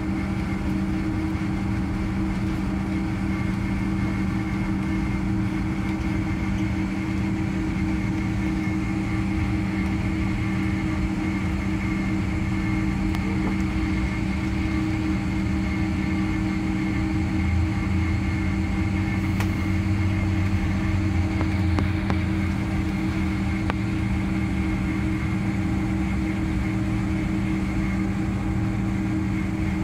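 Boeing 767-300ER jet engines running at taxi power, heard from inside the passenger cabin: a steady hum with a couple of held low tones and a faint higher whine, swelling slightly about two-thirds of the way through.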